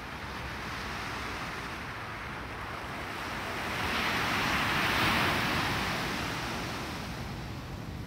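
Small ocean waves breaking on a sandy beach: a steady wash of surf that swells to a louder hiss of breaking whitewater about halfway through, then fades back.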